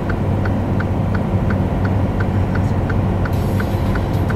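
Steady low drone of a truck's diesel engine and road noise heard from inside the cab on a long downhill grade, with a light regular ticking about three times a second.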